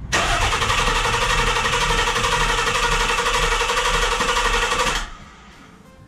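Nissan 300ZX's V6 being cranked by the starter for about five seconds without firing. The cranking is steady and stops abruptly. No fuel is reaching the engine, which the owner suspects is down to the fuel pump relay or the fuel pump.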